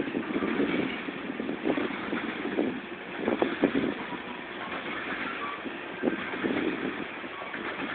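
Covered grain hopper cars of a freight train rolling past: a steady rumble and rattle of steel wheels on rail, with a few sharp clacks about three and a half seconds in.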